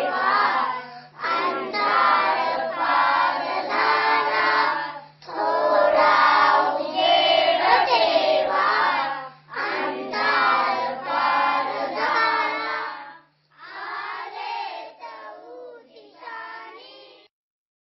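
A group of children singing a song together in phrases of a few seconds with short breaks between them. The last phrase is quieter and stops just before the end, and a steady low hum runs under most of the singing.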